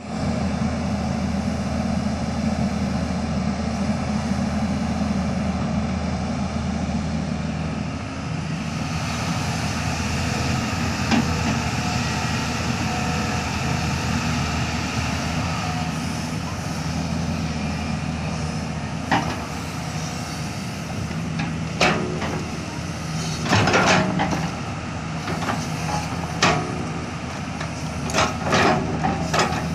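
JCB 3DX backhoe loader's diesel engine running steadily under load. From about two-thirds of the way through come sharp knocks and clanks from the digging gear, more and more often near the end.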